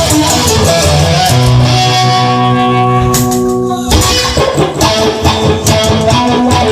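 Instrumental break in a rock-style song, with guitar to the fore and no singing. About a second in, a chord is struck and held ringing for over two seconds, then cut off sharply as the rhythmic playing comes back in.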